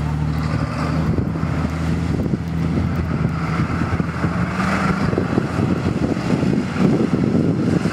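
Old Ford pickup's engine running hard as the truck churns through a mud bog, its pitch stepping up a little about halfway through, with wind on the microphone.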